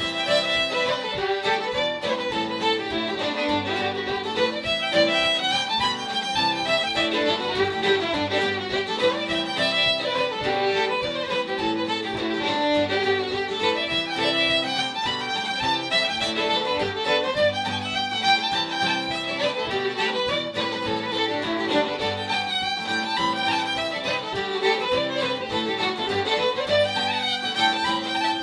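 Two fiddles playing an Irish traditional tune together, with acoustic guitar accompaniment.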